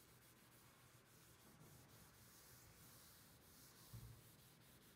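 Very faint rubbing of a cloth wiping conditioner across an end grain walnut cutting board, close to silence, with a soft low thump about four seconds in.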